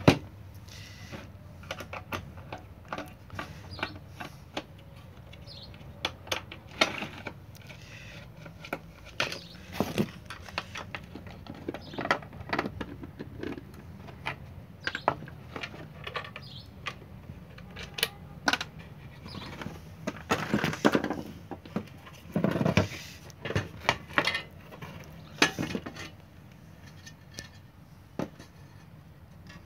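Screwdriver and small screws and clips clicking, tapping and scraping against an LED floodlight's housing as it is unscrewed and taken apart. The clicks come irregularly and grow busier about two-thirds of the way through.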